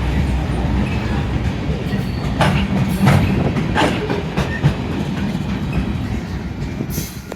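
Union Pacific local freight train rolling past: a steady low rumble, with several sharp clanks of wheels over rail joints about two to four seconds in.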